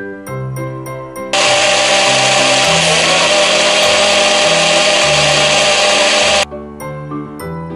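Small blender running at full speed, grinding a wet spice-and-herb paste for about five seconds; it starts abruptly a little over a second in and cuts off suddenly near the end.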